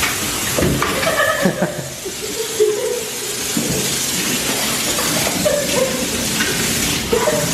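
Water spraying from a dog-wash hose nozzle onto a wet dog's coat: a steady hiss of spray, with a few brief vocal sounds over it.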